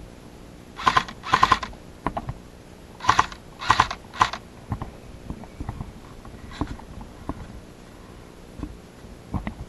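Dry leaves and brush crunching underfoot: a couple of short crunches about a second in and three more around three to four seconds in, then only faint small clicks and rustles.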